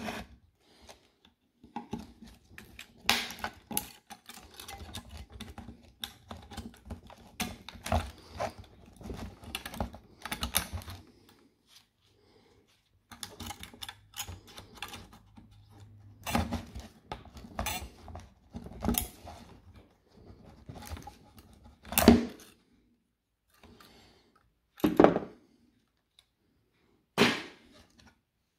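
Pliers cutting and prying at the nickel connection strips between a DeWalt Flexvolt battery's circuit board and its cells: irregular metallic clicks, snips and scrapes, with a few sharper snaps, the loudest about two-thirds of the way through.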